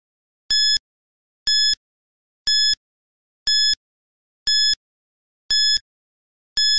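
Countdown timer sound effect: short, high electronic beeps once a second with silence between, seven in all, marking the seconds running out.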